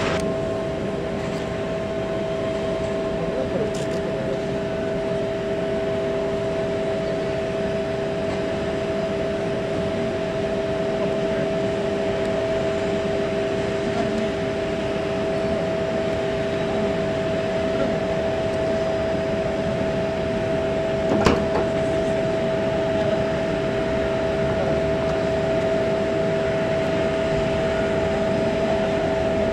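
Steady machine noise of airport ground equipment around a parked airliner at the gate: two steady whining tones over an even rushing hum, with one short click about 21 seconds in.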